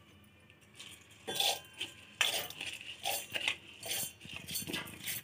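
Soaked rice being spooned from a bowl into a stainless steel mixer-grinder jar: irregular clinks and scrapes of the steel spoon against the bowl and jar. They start about a second in.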